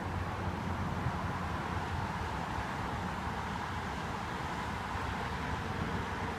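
Steady low hum and hiss of background noise, with no bangs or thunder claps.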